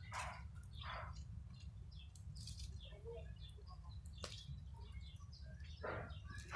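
Open wood fire crackling, with a few short, sharp pops over a low steady rumble.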